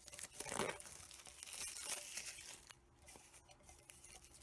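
Packaging being torn open and crinkled by hand, a rustling, crackling wrapper that quiets down about two-thirds of the way in, leaving a few small ticks.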